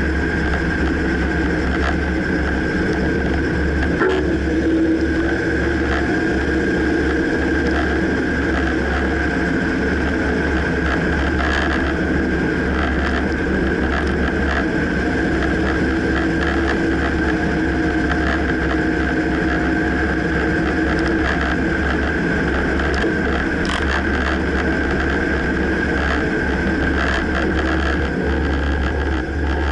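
2009 Dodge Ram pickup running with a steady low rumble and a high whine, broken by a few short knocks spread through: the clunking noise whose source the owner cannot pinpoint.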